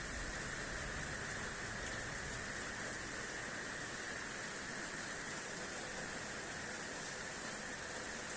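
Heavy rain pouring down in a thunderstorm, a steady even hiss of rain with no let-up.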